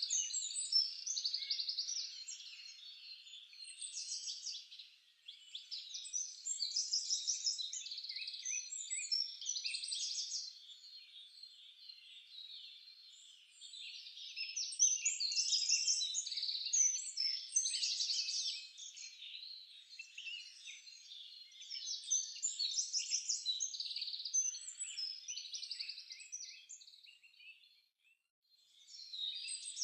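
Many small birds chirping and twittering in a dense, continuous chorus of short high trills, dropping out briefly near the end.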